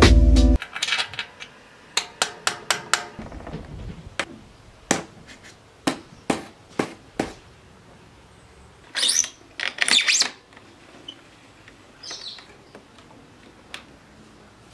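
Background music cuts off shortly in, followed by a run of sharp clicks and knocks from handling a mountain-bike wheel and tubeless tyre, then two short bursts of hiss around the middle.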